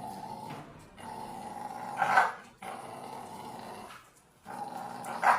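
A dog growling in about four long stretches, with short breaks between them.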